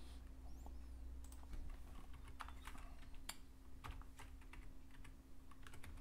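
Faint computer keyboard typing: scattered, irregular keystrokes as numbers are entered into spreadsheet cells, over a faint steady low hum.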